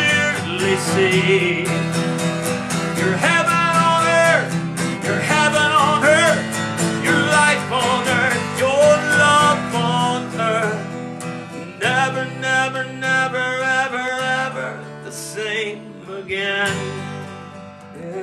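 Strummed acoustic guitar accompanying a voice singing long, wavering held notes.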